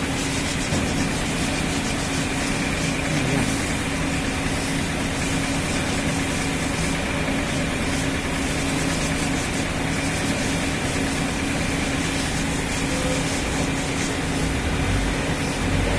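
A motor running steadily with a constant hum, without pause.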